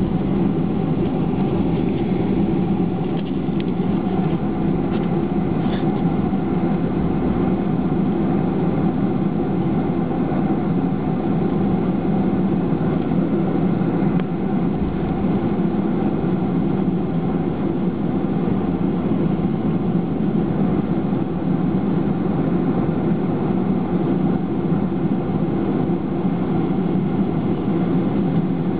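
Steady low hum of a Boeing 737-500's CFM56-3 turbofan engines at taxi power, heard from inside the passenger cabin, unchanging throughout.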